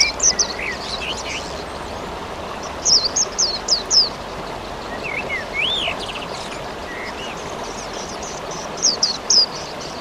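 Steady rain hiss under a songbird calling in three bursts of quick, high, downward-sweeping notes, near the start, about three seconds in and near the end. A few lower whistled notes come in the middle.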